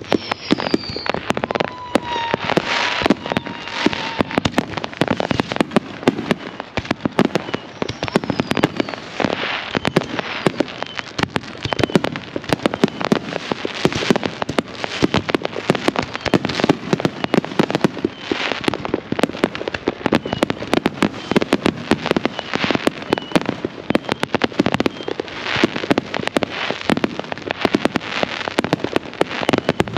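Fireworks display: a dense, unbroken barrage of bangs and crackles, with a few short whistles.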